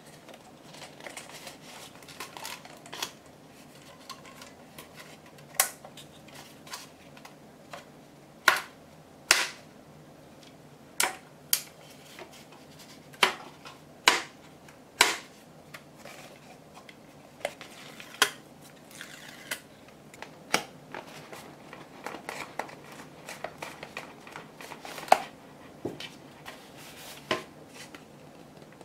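Paperboard kit panels being folded, creased and pushed into place by hand: about fifteen sharp snaps and taps of card against card at irregular intervals, with soft rustling of the card between them.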